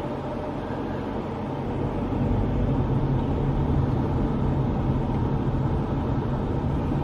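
Car driving along a road, heard from inside the cabin: a steady rumble of engine and tyre noise that grows a little louder about two seconds in.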